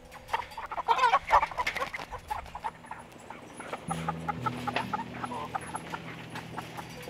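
White meat chickens crowded in a wire cage, clucking and calling in quick short notes. The calls are loudest and thickest in a flurry about a second in, then carry on more thinly.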